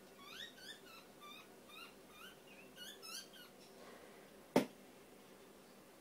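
Butcherbird chirping: a fast run of short rising chirps, several a second, that stops a little over halfway. About four and a half seconds in comes a single sharp knock, louder than the chirps.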